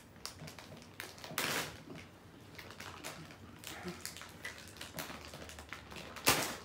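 Sharp, hissing breaths blown out through the mouth against the burn of very hot jelly beans: one about a second and a half in and a louder one near the end, with small clicks and rustles between.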